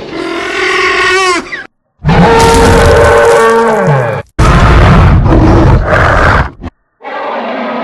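Dubbed-in roaring animal sound effects: three loud roars in a row, each with a falling pitch and each cut off abruptly by a short silence. A steady engine-like drone starts near the end.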